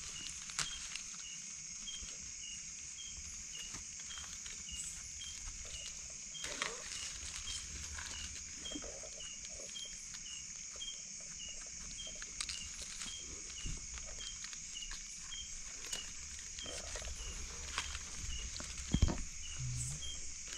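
Night insects calling: a steady high buzz with a chirp repeating a little under twice a second. Underneath, faint scattered scraping and rustling as a knife and gloved hands dig mushrooms out of dry leaf litter and soil.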